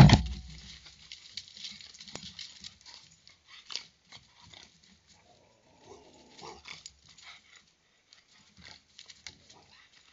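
A sudden loud knock at the start, then scattered rustling and clicking with brief animal calls, from a raccoon or fox moving about under a backyard bird feeder.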